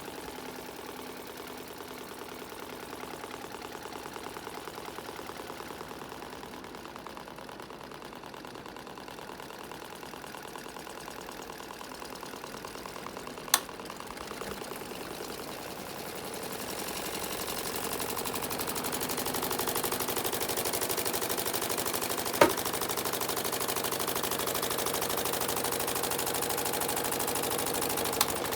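Mini washing machine running: a steady, rapid mechanical rattle that grows louder about halfway through, with a few sharp clicks.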